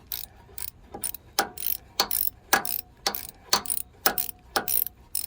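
Steady run of sharp metallic clicks, about three or four a second, each with a brief scrape, as a fastener on the snowblower's auger control cable is tightened.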